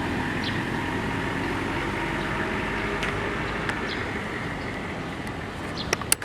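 Steady outdoor background noise, an even rumble with no clear voice or music, broken by a few sharp clicks shortly before the end.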